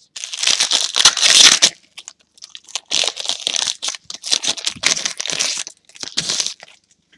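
Foil wrapper of a 2015 Panini Certified football card pack being torn open and crumpled by hand, in four rustling bursts, the longest and loudest about a second in.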